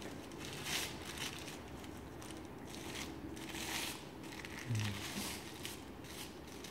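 A grooming wrap crinkling in short bursts as it is folded and wound around a Maltese's long tail hair. A brief low sound comes about two-thirds of the way through.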